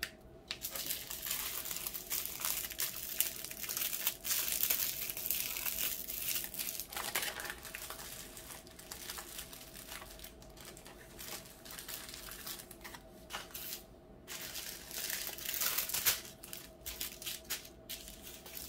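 Small plastic bags of diamond-painting drills crinkling and crackling as they are handled and grouped, almost without pause.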